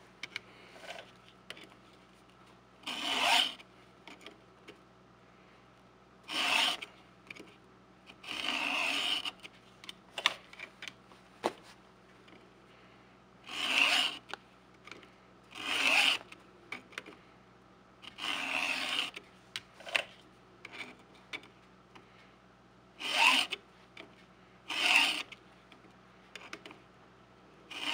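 Stihl 2-in-1 chain sharpener being pushed across the cutting teeth of a Stihl chainsaw chain, sharpening them: about eight separate file strokes, each under a second, a few seconds apart, with light clicks between.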